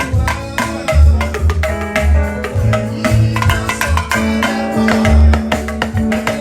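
Church band music for a processional hymn: drums and hand percussion keep a steady, busy beat with heavy low drum hits, over held bass and melody notes, without singing.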